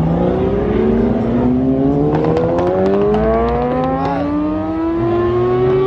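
Car engine pulling under steady acceleration, its pitch climbing slowly and evenly, with a few faint clicks partway through.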